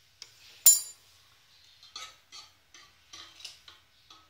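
Metal spoon clicking and tapping against a steel mixing bowl as baking powder is spooned into flour: one sharp click under a second in, then a run of lighter taps.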